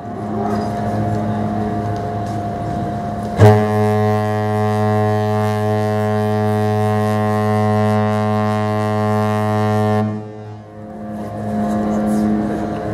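Deep ship's horn sounding at one steady pitch: a long blast starts sharply a little over three seconds in and holds for about six seconds, then fades briefly and sounds again near the end.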